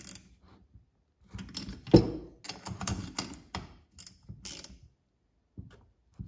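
A small ratcheting wrench clicking in short runs as the cylinder bolts of a Stihl 026 chainsaw are run down. Metal tool clicks and clatter, the loudest a sharp knock about two seconds in, then quiet with a couple of stray clicks near the end.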